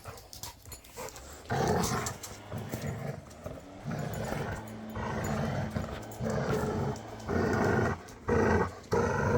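Dogs growling in play over a toy, in a run of short rough growls that start about one and a half seconds in.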